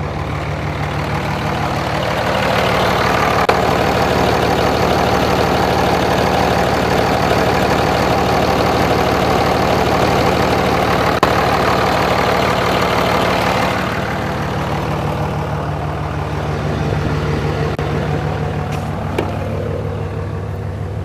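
Ram 2500's Cummins 5.9-litre straight-six diesel running. About two seconds in it grows louder and holds there until past the middle, then settles back to a quieter steady run.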